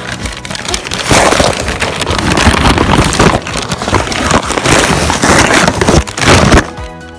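Loud crinkling and rustling of the snails' packaging being handled and unwrapped right against the microphone. It stops abruptly near the end.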